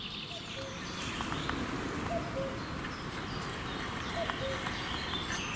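Common cuckoo calling twice in the distance, a falling two-note "cuc-koo" about two seconds apart.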